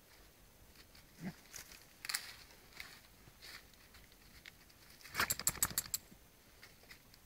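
Dachshund rolling and scrambling on leaf litter: faint scattered rustles and scuffs, with a quick run of about eight sharp clicks about five seconds in.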